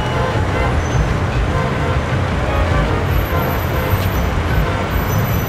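Street traffic: cars passing on a busy road in a steady, continuous rush.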